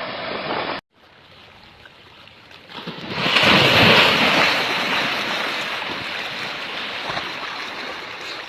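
A loud rushing noise that swells to a peak about three seconds in and then slowly dies away, after a short break near the start.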